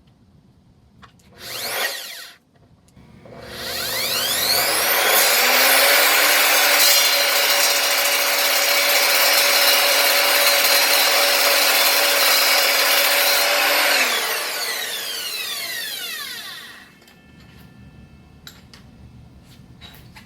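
Evolution R255SMS 10-inch multi-material sliding miter saw starting up, running steadily at full speed while cutting through solid aluminum square stock, then switched off and spinning down with a falling whine. A brief loud noise comes about two seconds in, before the motor starts.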